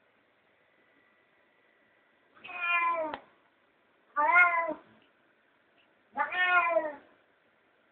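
Domestic cat meowing three times, each meow a bit under a second long and dropping in pitch at its end, with a couple of seconds of quiet before the first.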